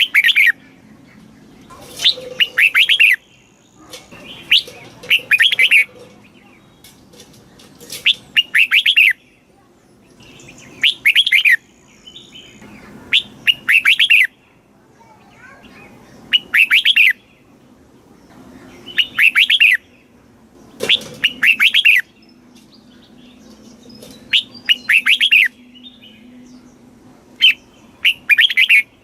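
Red-whiskered bulbul singing: short, loud warbled phrases of about a second each, repeated every two to three seconds, about ten times.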